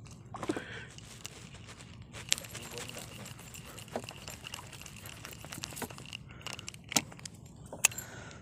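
Fishing tackle being handled: a small spinning reel and metal micro jig clicking and rattling, with a few sharp clicks, the loudest near the end.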